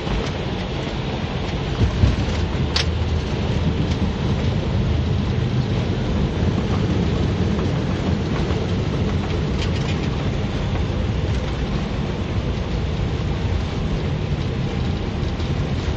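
Steady rumble inside an Airbus airliner's cockpit during the landing rollout: wheels and landing gear running on the runway, with engine noise. A single sharp knock about two seconds in.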